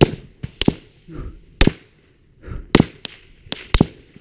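Small-arms gunfire: about eight sharp, irregularly spaced shots, some in quick pairs, cracking close by during a firefight.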